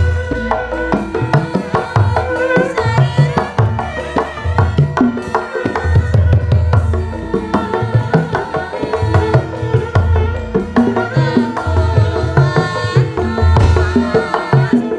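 Javanese gamelan music: kendang hand-drum strokes in a busy rhythm over ringing bronze metallophones.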